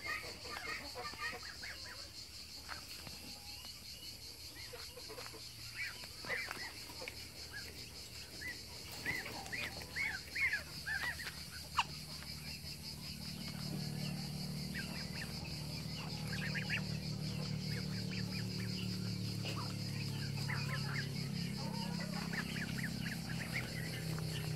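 Muscovy ducklings and goslings peeping in short, high chirps as they forage, over a steady high-pitched hiss. About halfway through, a low steady drone comes in and stays.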